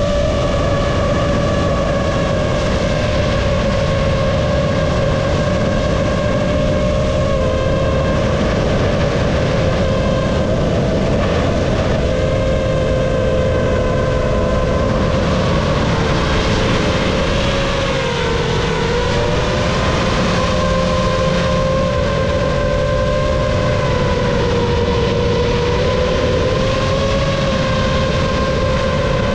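GEPRC Mark5 FPV quadcopter's motors and propellers whining in flight, a steady humming tone that drifts up and down in pitch with the throttle and dips briefly a little past the middle.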